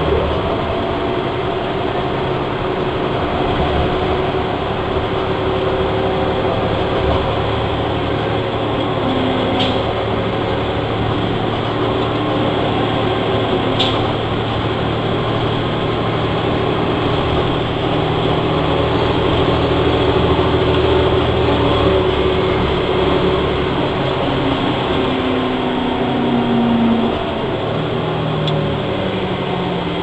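Orion VII NG transit bus in service, its Cummins ISL diesel engine and Allison B400R automatic transmission running steadily under way. Near the end the pitch glides upward, and two faint clicks come about ten and fourteen seconds in.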